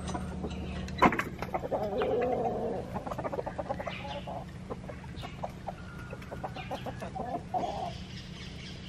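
Chickens clucking on and off, a mixed flock of roosters and young pullets, with a sharp click about a second in and a steady low hum underneath.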